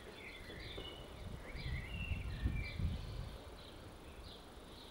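Outdoor park ambience of small birds chirping, many short high chirps and trills in quick succession. A low rumble swells in the middle.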